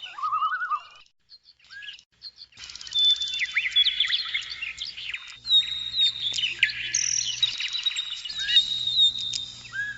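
Several birds singing: chirps, short whistles and trilled notes. After a near-silent gap a second or two in, the calls come thick and overlapping.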